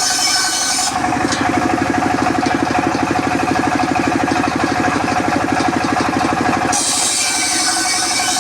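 Engine-driven circular sawmill running at a steady pace. From about a second in until near the end, the high hiss drops away and the engine's low, even pulsing grows stronger, before the earlier sound returns.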